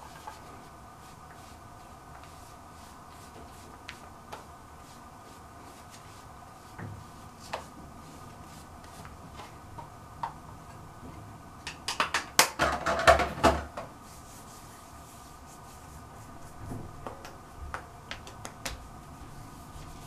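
Makeup items and containers being handled: scattered light clicks and taps, then a clatter of louder clicks and rattles about twelve seconds in that lasts some two seconds, with a steady hum underneath.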